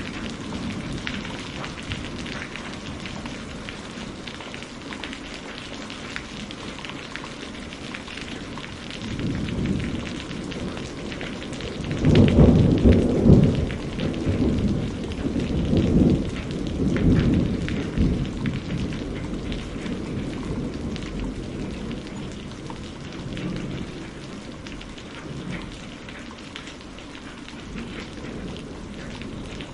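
Steady rainfall with a long roll of thunder that builds about ten seconds in, is loudest in a series of deep rumbles around the middle, and dies away, leaving the rain.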